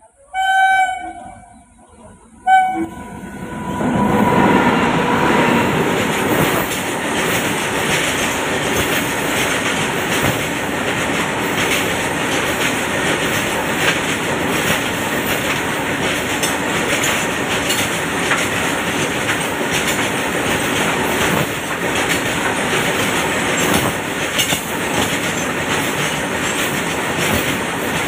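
Freight train: the electric locomotive's horn sounds a blast of about a second, then a short toot. From about three seconds in, a long rake of open-top freight wagons rolls past close by, a steady loud rush of wheels on rail with clickety-clack from the rail joints.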